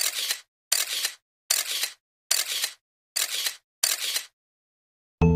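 A repeated noisy sound effect: six short bursts, each about half a second long, coming a little more than once a second. Music starts just before the end.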